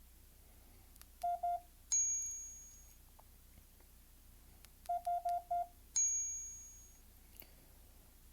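Morse code trainer app on a phone sounding short beeps of a single tone: two dits (the letter I) about a second in, then a bright ding that rings out, then four dits (the letter H) and another ringing ding.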